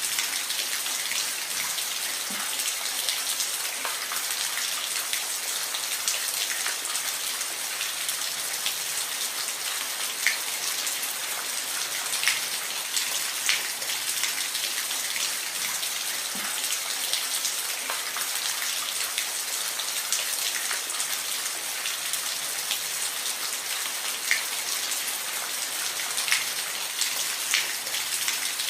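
Steady rain falling, a continuous hiss with scattered individual drops ticking sharply on a surface.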